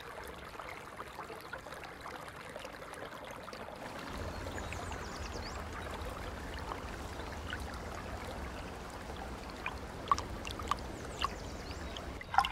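Steady trickling water, with a low rumble coming in about four seconds in and a few short sharp ticks near the end.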